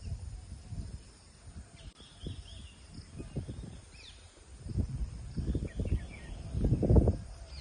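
Outdoor wind gusting against the microphone in uneven low rumbles, strongest about five to seven seconds in, with a few faint bird chirps.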